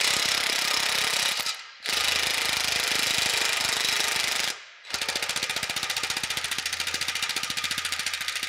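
Cordless impact driver with a socket hammering on a rusted square-head nut of a carriage bolt, in three long bursts; the last is a fast, even rattle of impacts as the stubborn nut resists coming loose.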